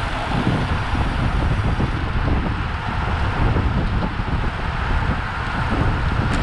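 Steady rush of wind buffeting the microphone of a camera riding at speed in a pack of racing road bicycles, with low road and tyre noise mixed in.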